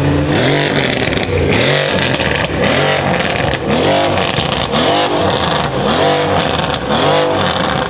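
Mercedes-AMG C63 S Estate's twin-turbo V8, with decat downpipes and a titanium iPE exhaust, revved in repeated blips about once a second, each rising and falling in pitch, with sharp cracks between the revs.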